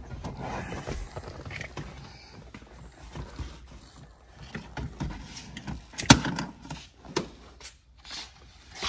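A bucket seat on its metal bracket being lifted and manoeuvred out of a car's door opening: rustling and handling noise with scattered knocks as it bumps the car. The loudest knock comes about six seconds in, with smaller ones a second and two seconds later.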